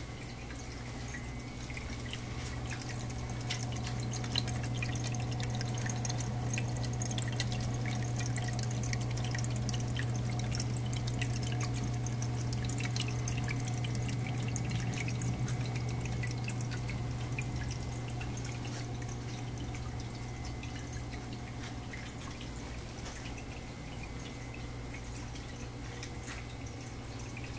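Water from a granite wall fountain trickling and dripping in a dense patter of small splashes over a steady low hum, louder through the middle stretch.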